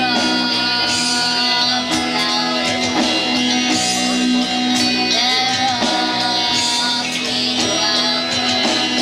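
Live band playing a pop song: 12-string acoustic guitar, electric lead guitar, bass guitar and drums, with a female voice singing.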